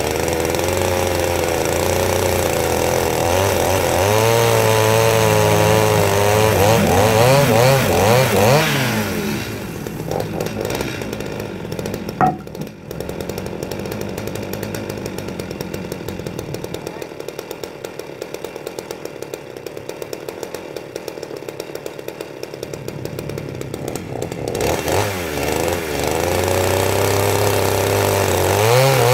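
Two-stroke chainsaw revving high with a wavering pitch, dropping to a pulsing idle about nine seconds in, then revving up again near the end as it goes back to cutting the log. A sharp click sounds about twelve seconds in.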